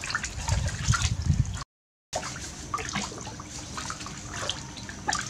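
Water splashing and sloshing in a plastic basin as a long-handled bath puff is swished through it and rubbed over a baby monkey in the water. The sound cuts out completely for about half a second just before two seconds in, then the splashing resumes more softly.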